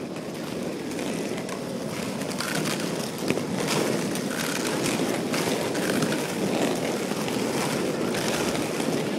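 Roller skate wheels rolling over rough asphalt: a steady, grainy rumble with a few small clicks.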